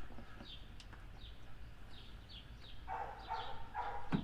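Small birds chirping over and over in short falling notes, with a dog's whining yips about three seconds in. Just before the end comes a single sharp click, the tail-light bulb socket twisting and locking into place.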